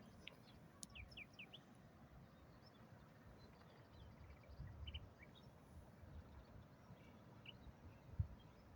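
Faint bird chirps, short high notes scattered through the first half and again in the middle, over a low rumble, with a single dull thump near the end.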